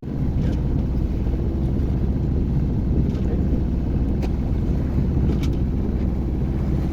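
A boat's engine running steadily with a low hum, with a few faint ticks over it.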